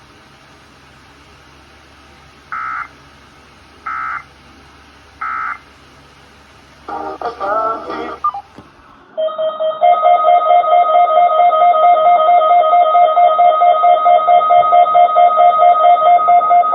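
Emergency Alert System signalling on NOAA weather radio. Three short digital squawks come about a second and a half apart, the end-of-message code after an Amber Alert. A brief jumbled burst follows, then a loud, rapidly pulsing alert tone holds steady for about eight seconds before the alert is read again.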